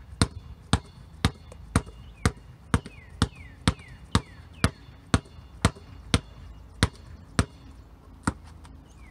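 Basketball pound-dribbled hard with one hand at shoulder height on a concrete driveway: sharp, loud bounces about two a second, keeping a steady rhythm.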